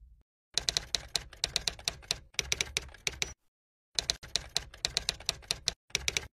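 Typing sound effect: rapid key clicks, several a second, in two runs with a short pause about halfway, as text is typed out on screen.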